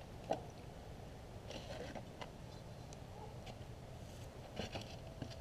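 Clinks and scrapes of a utensil against a frying pan and plate as food is served from the pan on a campfire grill: one sharp clink about a third of a second in, a few more scattered, and a short cluster near the end, over a low steady rumble.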